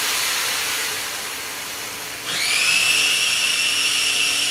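Turkey meatballs sizzling in a frying pan, fading down over the first two seconds. Then an electric motor starts suddenly with a brief rising whine and runs on at a steady high pitch.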